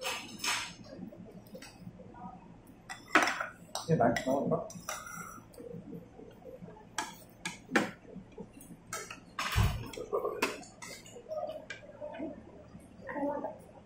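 Chopsticks and a spoon clicking and clinking against porcelain bowls and plates in irregular, sharp clinks.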